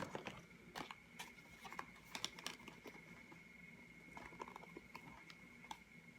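Faint handling noises: scattered light clicks and taps as yo-yos and their packaging are picked up and set down, over a faint steady high whine.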